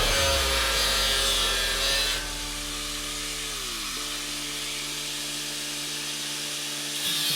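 A power tool cutting through steel plate over background music with a steady beat. About two seconds in, the cutting stops and only the music carries on, its chords sliding down in pitch before holding steady. The cutting comes back right at the end.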